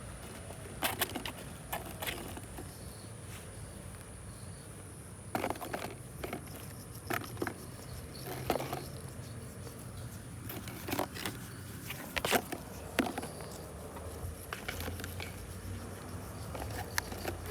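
Irregular light taps, clicks and rustles, some sharper than others, over a steady low hum.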